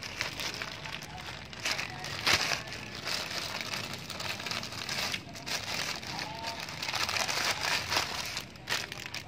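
Plastic courier mailer bag crinkling and crackling as it is handled and pulled open, with a sharp crackle about two seconds in.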